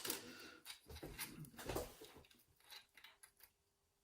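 Small metal lock parts being handled while pinning up a euro cylinder: a sharp click at the start, then scattered faint clicks and taps that die away in the last second or so.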